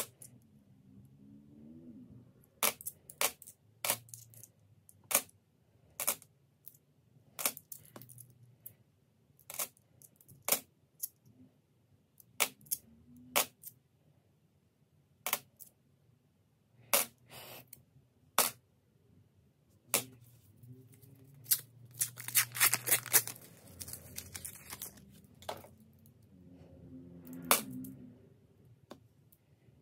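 Australian $1 coins clinking as they are handled one at a time, a sharp clink about once a second. Around two-thirds of the way through comes a quick run of many clinks as several coins knock together at once.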